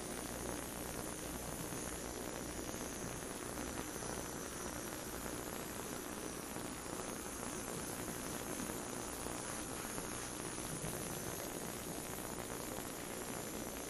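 Handheld gas torch burning with a steady hiss, its flame passed lightly over a carved white pine figurehead to scorch the wood.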